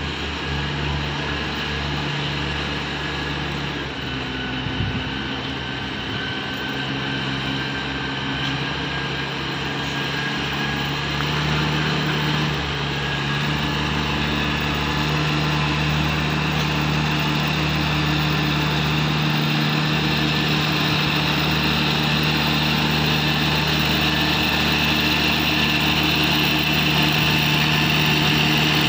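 Riding rice transplanter's small engine running at a steady speed as the machine plants across a flooded paddy, growing gradually louder as it comes closer.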